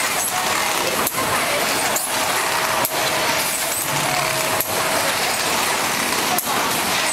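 Automatic battery shrink-sleeve wrapping machine running: a steady hiss with a sharp clack about once a second as it cycles.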